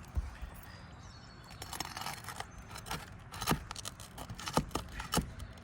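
Scraping of a metal tool under asphalt shingles as a roofing nail is pried loose, with several sharp metallic clicks in the second half.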